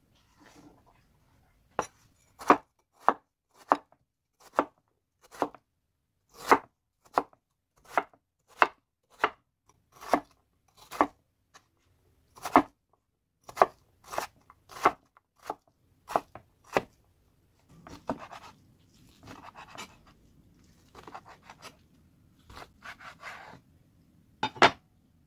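Kitchen knife dicing a raw potato on a wooden cutting board: crisp, steady chops at about one and a half strikes a second. The chopping stops about two-thirds of the way through and gives way to softer scraping and rustling. One last sharp chop comes near the end.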